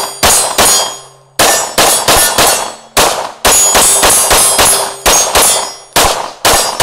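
A Sig P365 Macro 9mm pistol with a Faxon threaded barrel and compensator fires a string of about seventeen shots of 115-grain Magtech ammunition. The shots come in quick runs, each a sharp crack with a short fading tail.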